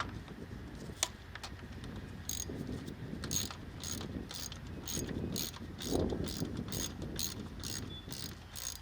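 Socket ratchet clicking in an even run, about two to three clicks a second, as an 8 mm bolt is turned out with a socket.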